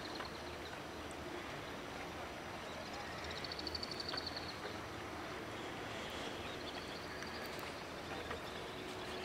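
Steady outdoor background noise, a low hum with hiss, and a high, fast trill about three seconds in that lasts about a second, with a fainter high call later.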